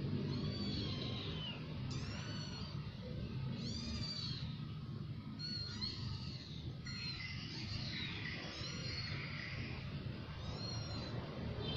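Young kittens mewing: short, thin, high-pitched calls repeated every second or two, over a steady low background rumble.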